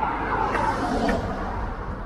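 A pickup truck driving past close by on a road, its tyre and engine noise swelling to a peak about a second in and then fading.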